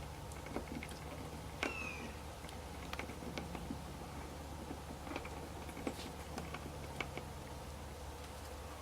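Scattered light clicks and taps of hands working small parts while fitting an RV side camera and its cable grommet. A short high squeak comes about two seconds in.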